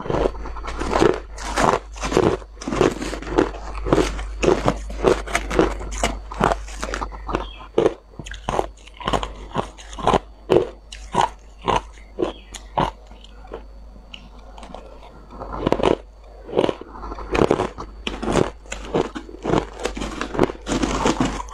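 Crushed clear ice crunched between the teeth: a fast, steady run of sharp crunches, easing off briefly about two-thirds of the way through.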